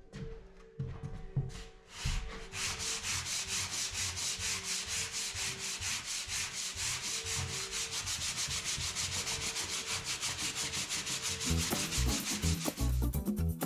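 Hand-sanding of dried filler on plasterboard joints: quick, even back-and-forth scratchy strokes, several a second. Music comes in near the end.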